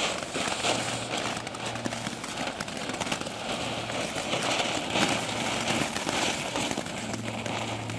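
Two small Weco 'Flitze Feuerstein' ground fireworks burning, hissing steadily with fine crackles as they spray sparks.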